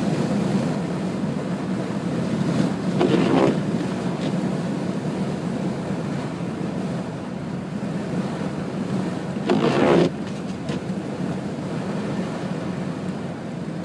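Cabin noise inside a 1998 Subaru Legacy Outback driving in strong wind: a steady low drone of engine and road with wind buffeting the car. Two brief louder sounds come about three seconds in and again near ten seconds.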